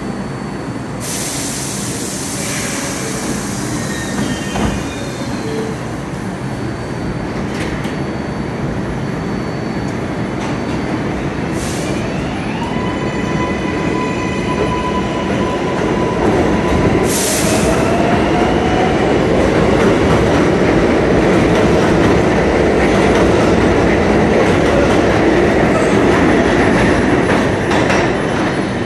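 A New York City subway train on the Lexington Avenue line pulling out of the station. A brief hiss comes about a second in. Then, about halfway through, the traction motors whine with stepping, sliding tones as the train starts off, and a loud rolling rumble of wheels with some squeal builds as the cars pass and leave.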